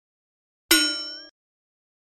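A short intro sound effect: a bright chime-like ring struck once, fading for about half a second before cutting off sharply.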